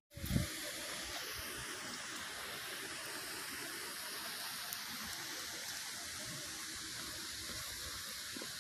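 Steady, even rush of falling water, such as a waterfall or rain in a gorge.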